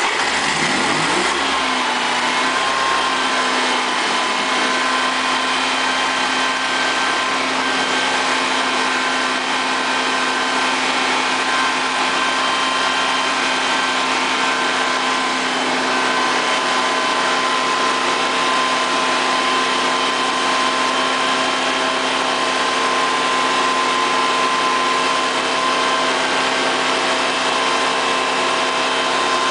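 Honda EV6010 generator's engine starting and rising to speed within about two seconds, then running at a steady speed.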